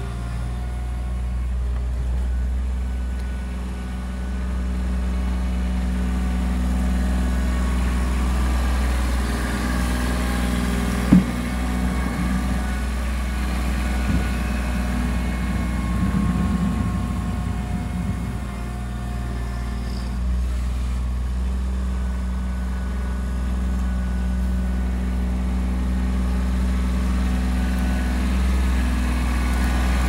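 Engine of a compact tractor-loader-backhoe running steadily close by while it clears snow, with one sharp metallic clank about eleven seconds in.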